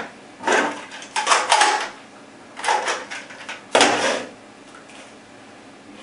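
Sharp plastic clacks and knocks as an airsoft M4A1 rifle is handled and its magazines are set down and stacked on a tabletop. The clacks come in about five short bunches over the first four seconds.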